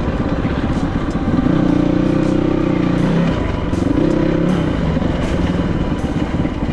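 Kovi 450i Pro enduro motorcycle's single-cylinder engine running under way, the engine note pulling up louder twice, for a second or two each time.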